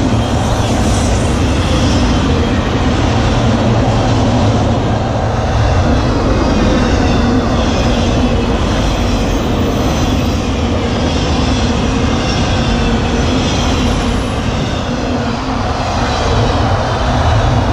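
Freight train's autorack cars rolling past at close range, making a steady, loud noise of steel wheels on the rails.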